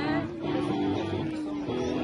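Recorded country song playing: the guitar-led instrumental intro, before any singing comes in.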